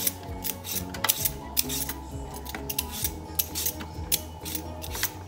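Handheld vegetable peeler scraping the skin off a raw potato in repeated short strokes, over background music with steady sustained notes.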